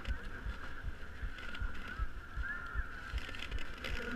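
Muffled background hubbub of a crowded hall with frequent soft, irregular knocks and bumps against the camera and table.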